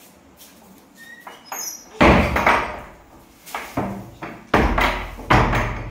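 Wooden door banging against its frame about five times in quick succession, a loud knock every half second to a second, the first the loudest.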